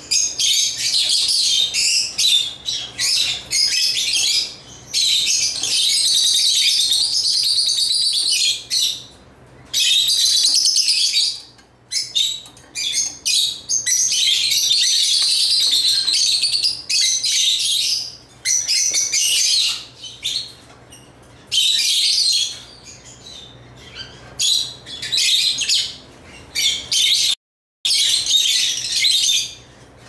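African lovebirds chirping: shrill, high chattering in runs of one to several seconds with short pauses between. The sound cuts out completely for a moment near the end.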